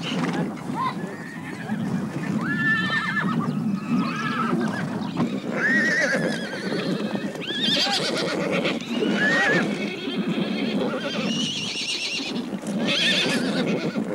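Horses whinnying again and again: about half a dozen high, wavering calls, some close together, over a steady low rumble of the herd.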